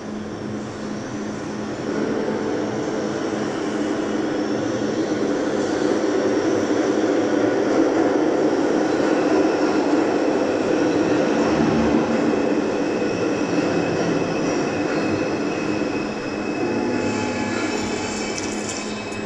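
Rumble of a passing train that builds over the first few seconds, is loudest in the middle, and fades near the end, over a steady low hum.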